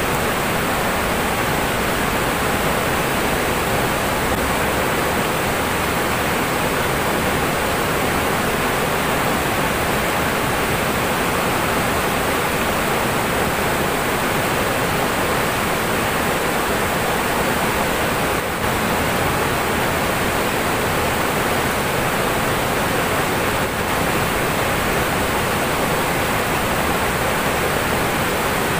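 Fast river water rushing over rocks in rapids, a steady, unbroken noise of running water.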